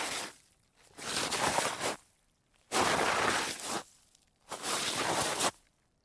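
Sliding on snow, repeated: one slide fading out at the start, then three swishing slides of about a second each with short pauses between.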